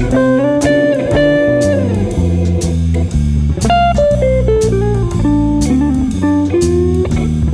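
Background music: a guitar melody over bass notes and a steady beat.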